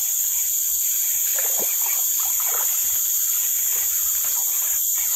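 Steady chorus of forest insects: a continuous, shrill high-pitched drone in two tones, held without a break.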